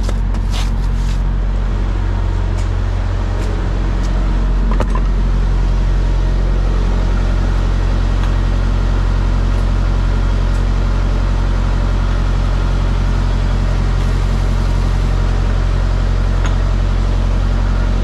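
Semi truck's diesel engine idling steadily with a low, even hum, with a few light clicks near the start and a single knock about five seconds in.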